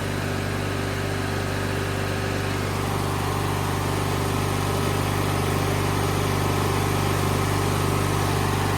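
A 1997 MTD Yard Machines riding lawnmower engine running steadily at idle, just caught after a hard cold start at about 10 °F with ether sprayed into the carburetor. It picks up slightly about three seconds in.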